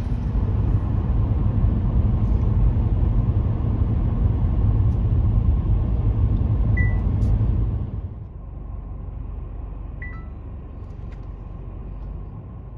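Car driving, with a steady low road-and-engine rumble heard inside the cabin that eases off about two-thirds of the way through. Two short high beeps sound over it.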